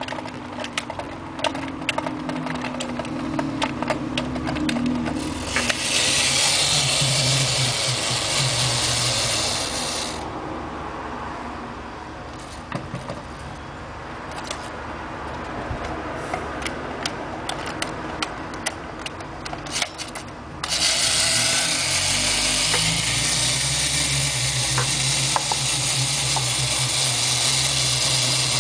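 Clockwork wind-up robot toy: its key is turned with a run of ratcheting clicks, then the spring motor whirs for about four seconds. More scattered clicks follow, then a longer run of steady whirring to the end.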